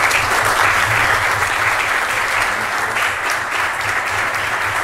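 A few dozen people applauding steadily, a sustained round of clapping.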